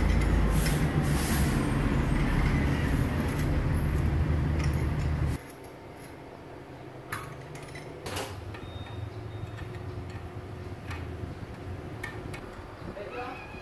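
Light metal taps and clinks from a hammer and tools working on a generator rotor. Under them, a loud steady low machinery hum runs and cuts off suddenly about five seconds in, leaving only scattered knocks.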